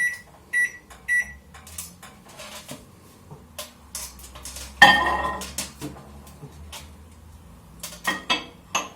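Microwave oven beeping as it is set for three minutes, short evenly spaced beeps about every 0.6 s, then the oven running with a low hum. A loud clatter about five seconds in and a few sharp knocks near the end.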